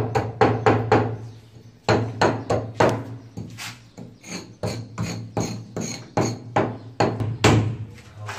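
Club hammer striking a steel cold chisel, chipping away stone and mortar at a countertop opening to seat a kitchen sink. The blows are sharp and ringing, about three a second, with a short pause after the first second.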